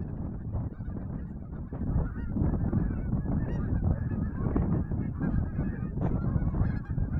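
A large flock of geese honking, many overlapping calls that swell about two seconds in, over a steady low rumble of wind buffeting the microphone.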